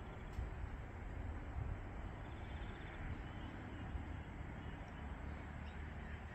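Wind buffeting the microphone, a steady low rumble, with a few faint high chirps from birds.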